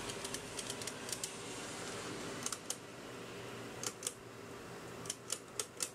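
Light, sharp clicks of 3D-printed plastic tourbillon parts being handled on a workbench. The clicks are scattered, and several come in quick pairs.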